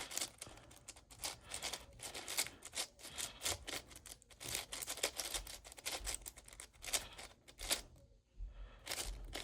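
Magnetic 7x7 speed cube being turned by hand: a rapid, irregular run of plastic clicks and clacks, with a short pause about eight seconds in. The cube is tight and catches on every turn.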